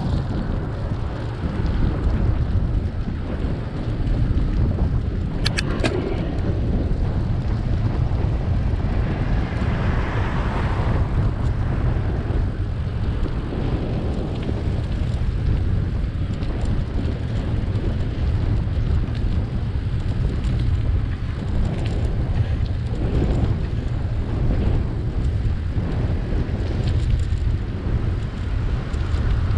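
Steady wind rumble on the microphone of a camera moving with a bicycle, mixed with road noise. A short burst of clicks comes about six seconds in, and the noise swells briefly around ten seconds.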